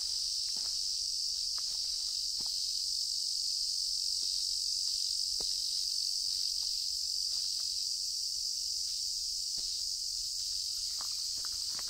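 A steady, high-pitched chorus of insects buzzing without a break, with faint scattered clicks under it.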